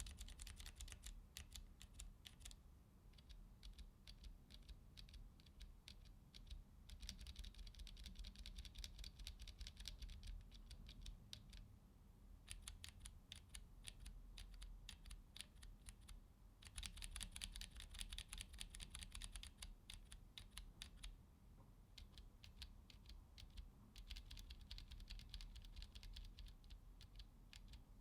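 Faint typing on a mechanical keyboard with Cherry MX Grey tactile switches: runs of rapid keystroke clacks with short pauses. After a brief gap about twelve seconds in, the switches change to Cherry MX Clear tactile switches, typed the same way.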